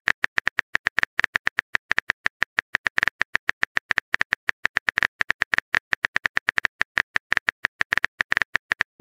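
Typing sound effect: a fast, slightly irregular run of short keyboard clicks, about ten a second, as the next chat message is typed.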